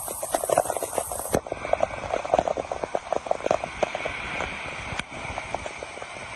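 Muddy floodwater rushing along a street: a steady rush with many short splashes and knocks.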